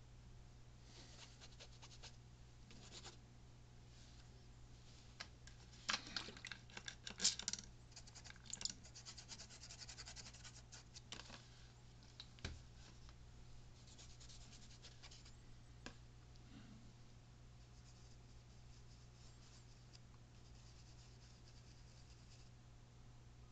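Bursts of scratching and rubbing, loudest in a cluster a few seconds in, followed by a single sharp click, over a steady low hum.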